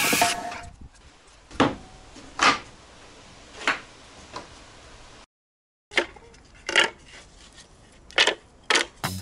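Pine boards knocking and clacking as they are handled and set down: a series of separate sharp wooden knocks roughly every second, with quiet between. Music cuts off in the first half second, and there is a brief dead silence midway.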